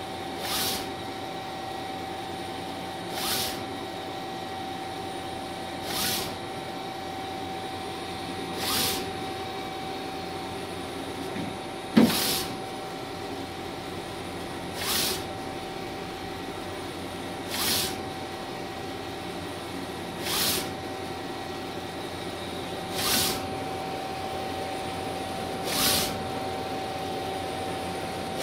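Mimaki 3042 HG UV-LED flatbed printer running a print job: a steady machine hum with a constant whine, and a brief swish about every three seconds as the print carriage makes its passes across the bed. One sharp click about halfway through.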